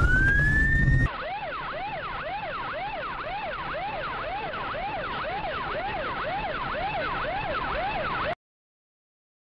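Police car siren: a rising wail over a loud vehicle rumble, then a fast wail sweeping up and down about twice a second. It cuts off abruptly about eight seconds in, leaving silence.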